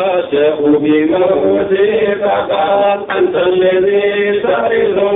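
A man chanting a Sufi religious poem: one voice holding long notes and sliding between pitches, with brief breaks for breath.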